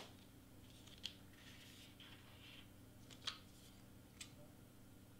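Near silence over a low steady hum, broken by three faint, short clicks and rustles of cardstock being handled.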